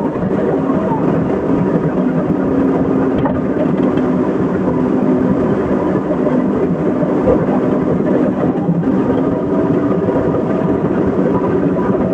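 Excavator engine running steadily, a loud continuous drone with a few held tones.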